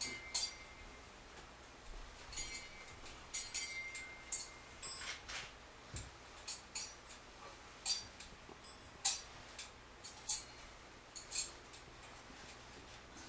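Ritual rattle with a small bell, the Vodou asson, shaken in short, irregular jingling strokes about once a second, with a light bell ring now and then.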